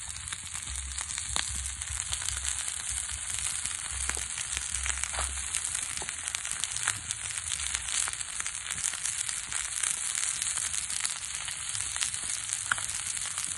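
Whole eels sizzling on a hot flat rock over a wood fire: a steady frying hiss with scattered small pops and crackles.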